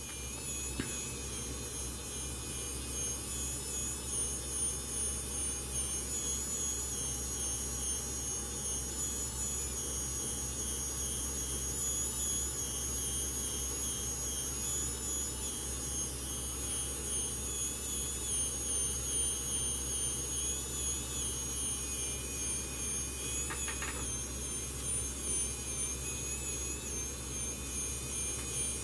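Steady whirring of a small motor, with a faint wavering high-pitched whine over it.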